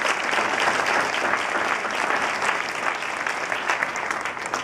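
Audience applauding, the clapping easing off near the end.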